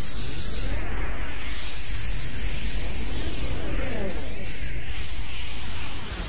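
Aerosol spray paint can spraying in one long steady hiss, which cuts off near the end.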